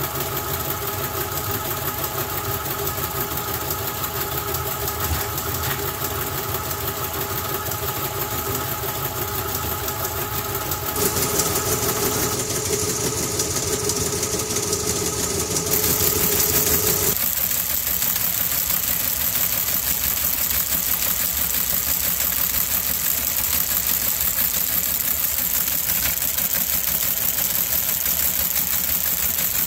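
Teletype Model 26 typewheel page printer running and printing Baudot text: a steady motor hum under the fast, continuous mechanical clatter of the printing mechanism.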